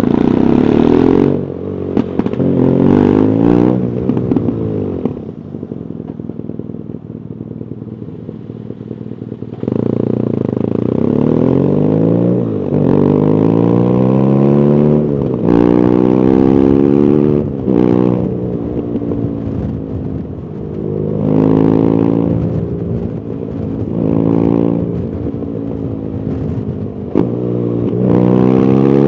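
BMW R nineT Urban GS's air/oil-cooled 1170 cc boxer twin, on its stock exhaust, accelerating through the gears: the pitch climbs and drops back at each upshift, several times in a row. About five seconds in the engine drops to a low, quieter idle for some four seconds before pulling away again.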